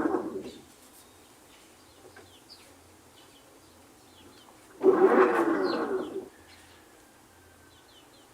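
Samsung top-load washer's motor driving the agitator in short bursts during its calibration cycle. One burst dies away about half a second in, and another starts about five seconds in and runs about a second and a half. Faint bird chirps are heard in the pauses.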